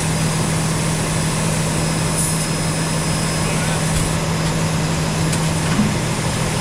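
An engine running steadily, a constant low hum with a noisy wash over it.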